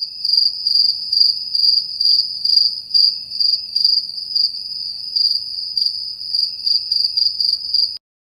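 Cricket chirping: a continuous high-pitched trill with louder pulses about two or three times a second, cutting off suddenly near the end.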